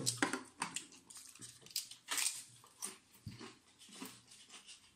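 Crunching and chewing of stacked paprika potato chips: an irregular run of short, crisp cracks.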